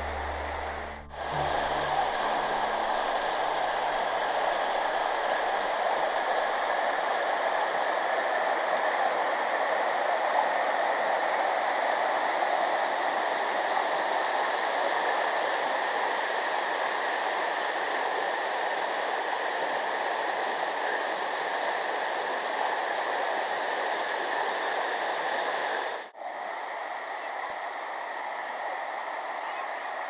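Steady rush of falling water from a waterfall. It cuts out briefly about a second in and again near the end, and is a little quieter after the second break.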